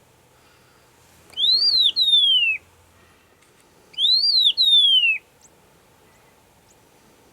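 Agulhas long-billed lark singing: twice, a phrase of two clear whistles, a note that rises and falls, then a longer whistle sliding down in pitch.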